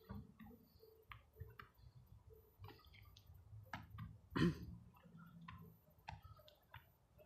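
Faint scattered clicks and soft thumps of a goalkeeper catching drill: footballs tossed to and caught in gloved hands, with one louder thud about four and a half seconds in.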